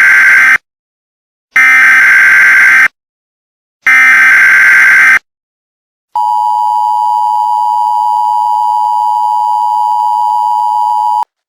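Emergency Alert System SAME header: three identical data bursts of about a second each, a second apart. Then the steady EAS attention tone sounds for about five seconds and cuts off suddenly, the signal that an alert message follows.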